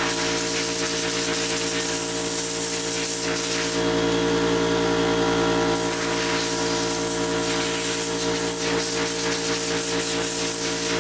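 Water spraying hard from a hand-held nozzle onto a screen-printing screen, washing the unexposed emulsion out of the mesh to open up the stencil. It is a steady hiss over a constant machine hum, and the hiss dulls for a couple of seconds about four seconds in.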